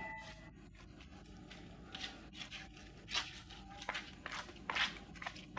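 A ringing chime dies away in the first half second. Then come several faint, short scuffs and rustles at uneven intervals.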